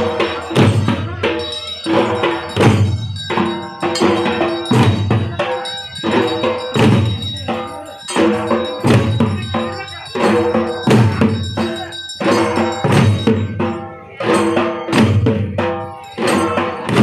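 A troupe of large barrel drums beaten with sticks, playing together in a driving rhythm with heavy accented beats about once a second and ringing drum strokes in between.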